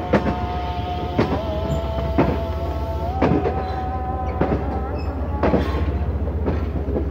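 Passenger train coaches rolling slowly out of a station, the wheels knocking over rail joints and points about once a second over a steady running rumble. A thin steady whine runs through it.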